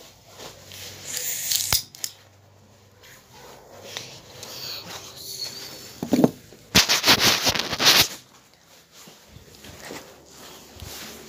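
Rustling and handling noise on a phone's microphone, coming in bursts, with a sharp click just before two seconds in and the longest, loudest burst about seven to eight seconds in.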